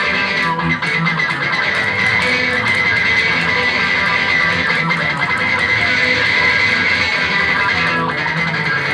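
A rock band playing live, with an electric guitar loud to the fore over a full band. The music runs on without a break.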